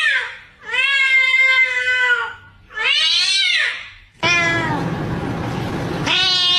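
Domestic cat meowing over and over, about four long, drawn-out meows with short pauses between them. A steady background hiss comes in about four seconds in.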